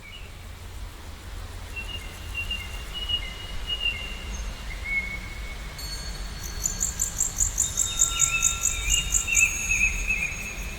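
Birds whistling and chirping, with a warbling phrase near the end and a fast, high pulsing trill of an insect or bird through the second half. Under them is a steady low rumble that fades in.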